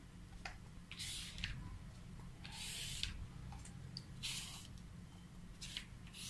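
Four short, faint rasping hisses, about a second and a half apart, from tape and plastic film being pulled and rubbed by hand on a screen-printing frame.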